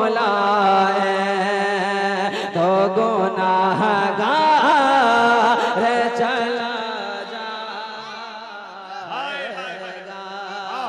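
Man singing an Urdu naat (devotional poem) in long, wavering held notes over a steady low drone; the singing fades away over the last few seconds.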